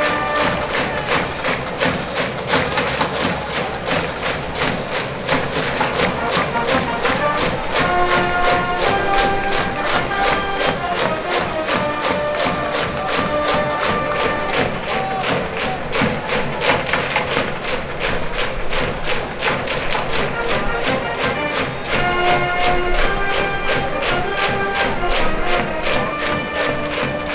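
School brass band playing a cheering tune in the stands, with a quick steady drum beat under it and brass notes that swell in and out.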